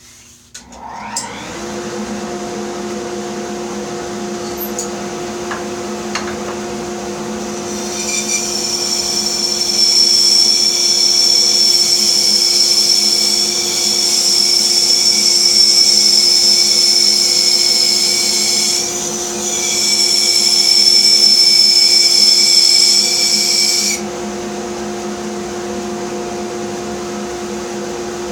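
Bandsaw motor starting about a second in and running with a steady hum; from about eight seconds in a loud high-pitched whine rides over it for some sixteen seconds, dipping briefly partway, as the blade cuts through a block of wood, then the saw runs on without load.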